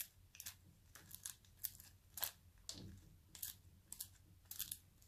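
Cornflakes coated in melted chocolate and honey crackling and scraping as a wooden spoon scoops them from a pan into a glass bowl. The sound is faint, a string of short, irregular crunchy scrapes.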